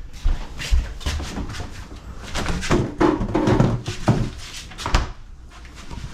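Knocks and clatter of a refrigerator's doors and compartments being opened and shut while searching it.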